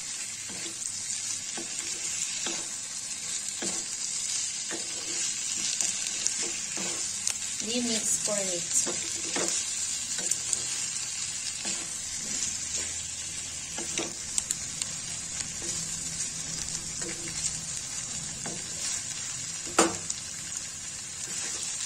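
Fish pieces in sauce with peppers and onion sizzling in a non-stick wok while a wooden spatula stirs them. Scattered scrapes and knocks of the spatula against the pan are heard throughout, with one sharper knock near the end.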